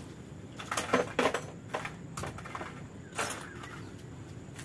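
Hand tools clinking and clattering as they are rummaged through in a toolbox tray, with a cluster of sharp knocks about a second in and another around three seconds in.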